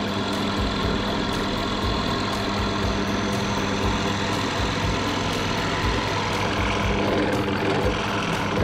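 Benchtop drill press running steadily with a constant low hum while its bit bores into a small block of wood.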